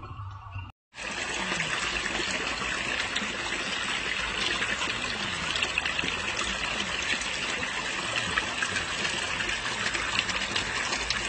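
Small forest stream trickling and splashing over rocks, a steady rushing with fine splashing detail, starting after a brief break just under a second in.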